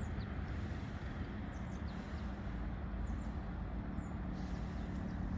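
Steady low rumble of distant road traffic across the water, with a few faint, short high bird chirps.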